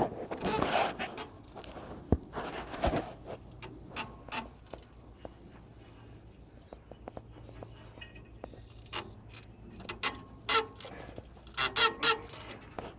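Scattered clicks, knocks and a few short squeaks of hands and tools working on the tractor's fan and belt.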